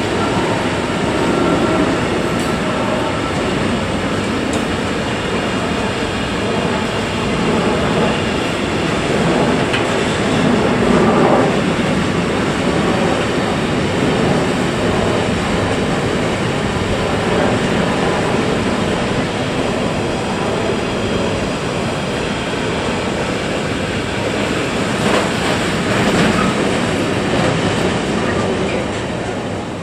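Freight train of container and tank-container wagons rolling past, a loud, steady rumble and rattle of steel wheels on rails. It falls away at the very end as the last wagon goes by.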